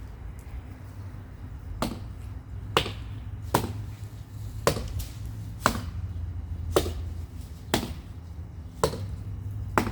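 Wood being chopped with a hand tool: nine sharp blows, about one a second, over a steady low rumble.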